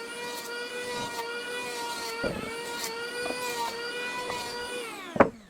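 An electric power tool's motor running at a steady speed with a few knocks, then spinning down as its pitch falls near the end, cut off by a sharp click.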